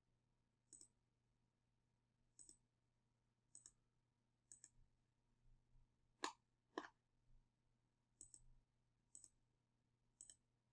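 Computer mouse button clicking, faint single clicks about a second apart, nine in all, as edges are selected one after another; two louder clicks come close together a little past halfway.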